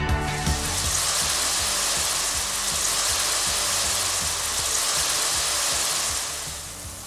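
Chopped raw onions sizzling in hot oil in a pot, a steady hiss that fades away near the end.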